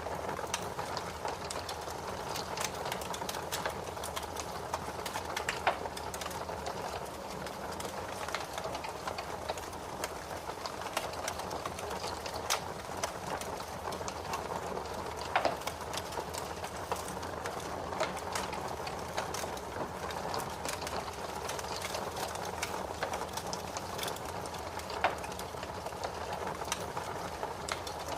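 Fire crackling in a fireplace: a steady hiss, dotted with many small pops and a few louder snaps.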